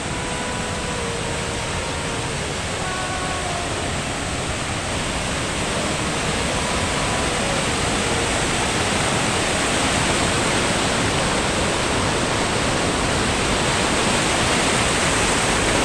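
Fast mountain river rushing over rocks in white-water rapids: a steady, loud rush of water that grows slowly a little louder.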